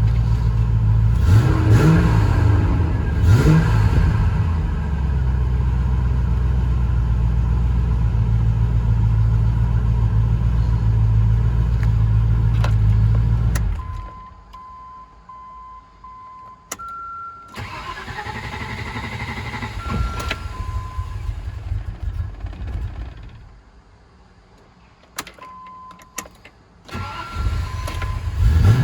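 A hot Range Rover Classic engine running, blipped twice, then idling until it is switched off. Warning chime beeps sound, the starter cranks it again, and it fires in the last seconds with a touch of throttle: the hot no-start that it only overcomes with slight throttle.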